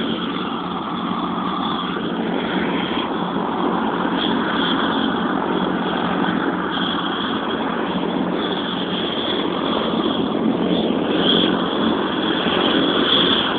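Helicopter running on the ground: a steady engine and rotor noise with a high, steady whine over it.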